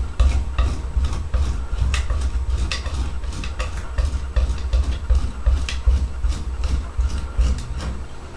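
Kitchen knife blade pressed flat and dragged across chopped garlic and coarse salt on a bamboo cutting board, the salt crystals crunching as they grind the garlic into a paste. Repeated scraping strokes, about one or two a second, over a steady low hum.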